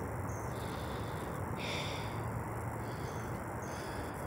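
Woodland ambience: a steady background hiss with a few faint, short high chirps.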